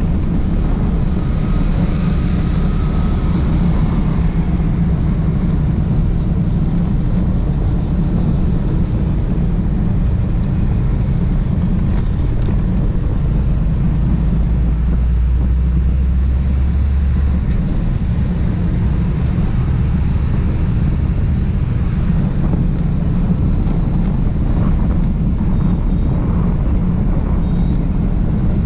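Steady wind and road rumble on the microphone of a motorbike riding in highway traffic. A deeper low rumble swells for about four seconds around the middle, as a lorry passes close alongside.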